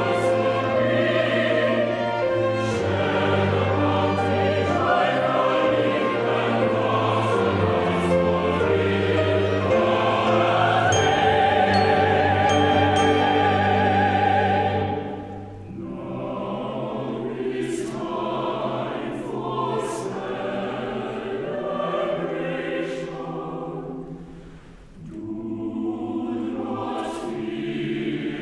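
Chamber choir singing with a string quartet, full and loud for the first half, then dropping suddenly to a quieter, sparser passage.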